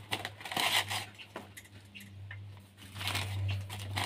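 Rustling and crinkling of a woven plastic bag as rubber straps are pulled off it on a bicycle carrier, in two short bursts about half a second and three seconds in, over a steady low hum.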